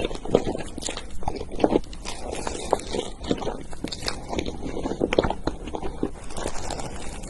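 Close-up chewing and biting of food: a run of irregular short crunches and mouth clicks.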